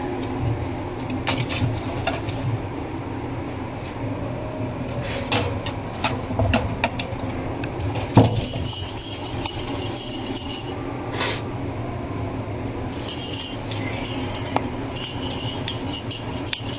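Light clinking and rattling with scattered sharp clicks, in short bursts about halfway through and again near the end: a small cat toy being batted and jiggled in play.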